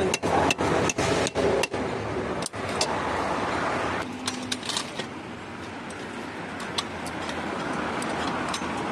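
A quick run of sharp knocks, about three a second, that stops about two seconds in, followed by the steady noise of a car.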